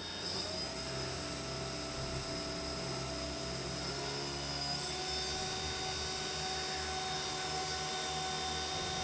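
Race-quad brushless motor spinning a 3D-printed 120mm fan blade at just under half throttle: a steady high whine with a rush of air, its pitch creeping slightly upward as the throttle is eased up.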